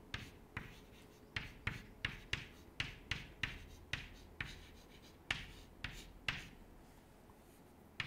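Chalk writing on a chalkboard: a run of short taps and scratches, two or three a second, that stops about six and a half seconds in.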